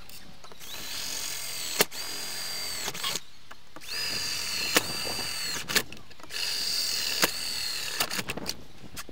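Cordless drill run in three bursts, each winding up to a steady high whine and winding back down, with sharp clicks between the bursts.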